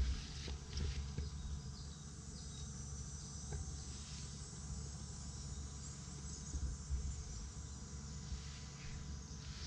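Insects chirring steadily in a high register over a steady low rumble, with a few faint clicks.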